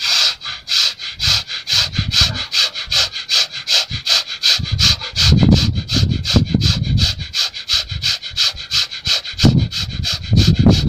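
Bhastrika pranayama: rapid, forceful breaths in and out through the nose in a fast, even rhythm of about five strokes a second. A low rumble comes and goes from about halfway in.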